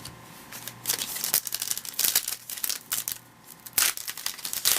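Crinkling and tearing of a trading-card pack wrapper being opened by hand, a run of irregular sharp crackles.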